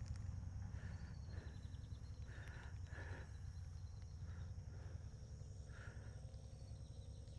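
Quiet outdoor ambience by calm water: a steady low rumble with short animal calls, about six of them at irregular intervals, fading toward the end.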